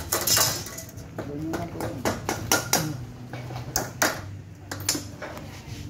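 Light metallic clicks and knocks of aluminium screen-frame strips being handled and fitted on a workbench, with a voice talking in the background.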